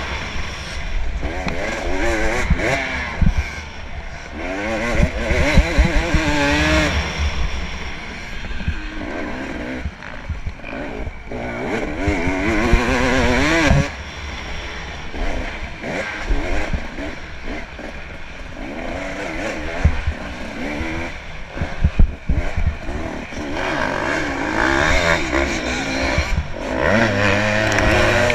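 Dirt bike engine run hard on a rough trail, its pitch climbing and dropping again and again with the throttle, with occasional sharp thumps.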